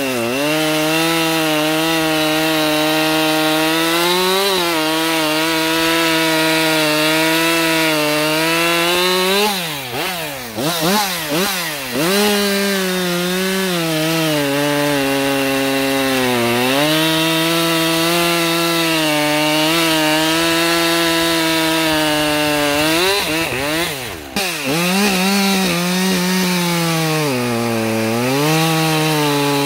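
Husqvarna 550 XP Mk2 two-stroke chainsaw cutting through stacked beech logs at high revs, its pitch sagging under load now and then. About ten seconds in, and again near twenty-four seconds, the revs drop and swoop up and down briefly before the saw goes back into the cut.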